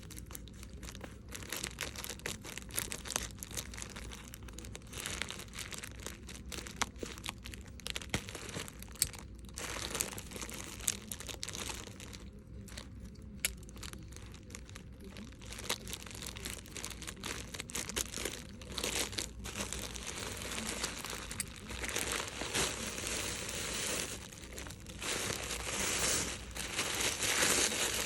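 Packaging being crinkled and torn open by hand as a mailed package is unpacked: irregular rustling, crackling and tearing, getting louder and busier near the end.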